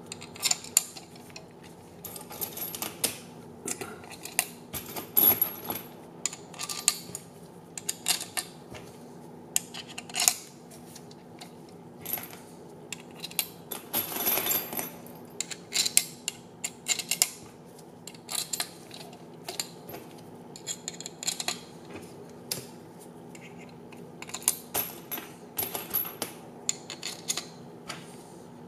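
Small metal screws dropped one by one into the holes of a quadcopter frame plate, making irregular light clicks and clinks, with a longer rattle about halfway through.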